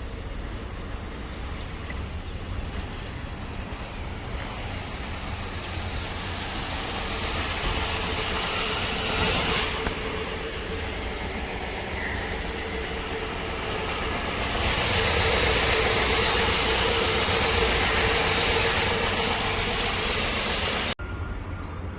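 Car engine running, louder briefly about nine seconds in and again from about fifteen seconds on; the sound cuts off abruptly near the end.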